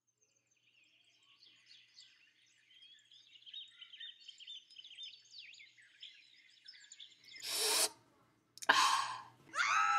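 Birds chirping, many quick overlapping chirps. Near the end come two short loud rushes of noise, then a loud held high tone that sets in with a drop in pitch.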